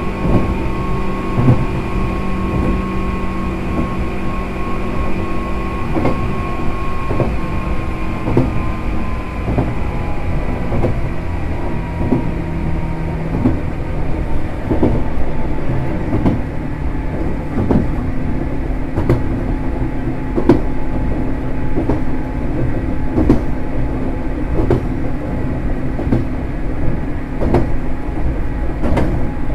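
Inside a JR West 105 series electric train running on jointed track: the high whine of the MT55A traction motors slowly falls in pitch as the train loses speed, over a steady rumble. From about the middle on, the wheels click over rail joints roughly every second and a half.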